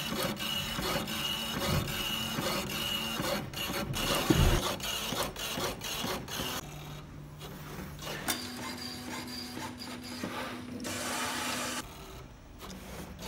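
Ceramic powder-bed 3D printer running, with steady motor whine and the clatter of the print-head carriage moving over the bed. The machine's tone changes abruptly a couple of times, and it drops quieter near the end.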